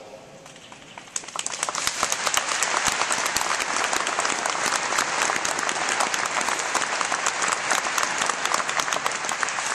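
Audience applauding: a large crowd's clapping breaks out about a second in and then holds steady and loud.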